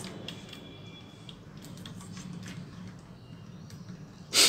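Faint clicks and ticks of hands handling a laptop motherboard and its plastic parts on a workbench, over a steady low hum. A short, loud rush of noise comes near the end.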